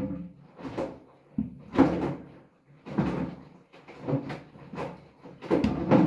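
Hoover front-loading washing machine tumbling a wet bath mat in water: the heavy load thuds and water sloshes in the drum, about once a second.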